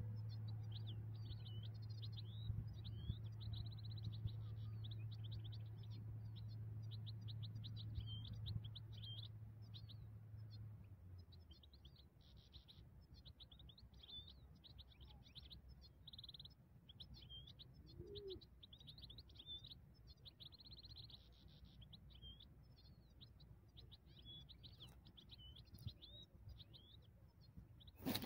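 European goldfinch singing: a long, unbroken run of quick twittering notes, trills and short buzzy phrases. A low steady hum lies under the first ten seconds or so, and a sharp knock comes at the very end.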